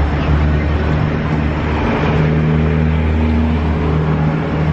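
An engine running steadily, with an even low drone over a haze of outdoor background noise.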